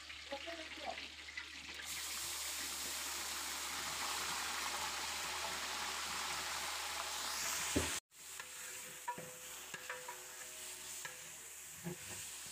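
Blended onion paste sizzling in hot oil in a large aluminium pot as it is stirred with a long-handled metal spatula. The steady sizzle swells about two seconds in, cuts out abruptly about two-thirds of the way through, and comes back quieter with a few short scrapes of the spatula.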